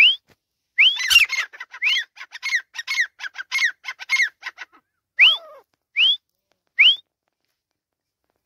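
Grey francolin calling. A rising whistled note, then a rapid run of repeated notes for about three and a half seconds, then three more single rising whistles, each under a second apart.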